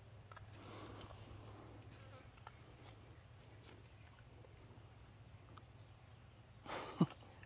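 Faint outdoor ambience of insects shrilling steadily in a high band, with scattered faint ticks. A single louder thump comes near the end.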